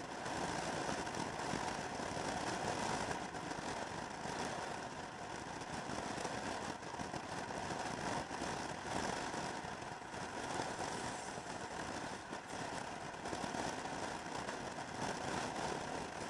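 Motor scooter cruising steadily at highway speed: an even engine drone mixed with wind and road noise rushing past.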